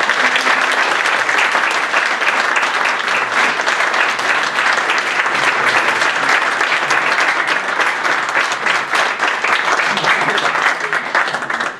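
Audience applauding, a dense steady clapping that dies away quickly near the end.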